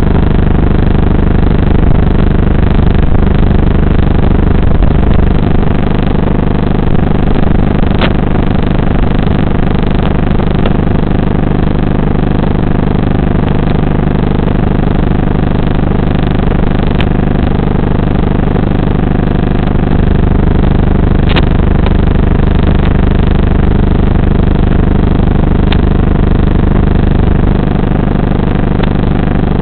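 Steady, loud electrical buzz with a low hum whose pitch never changes, plus a few faint clicks, as heard on the audio track of an analog FPV video receiver's recording.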